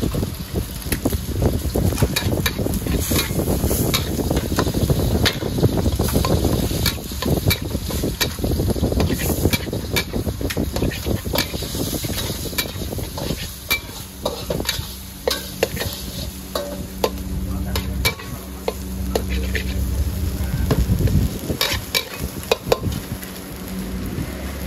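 Food stir-frying in a hot wok: steady sizzling, with the metal spatula clicking and scraping against the pan many times. A steady low hum comes in about halfway through.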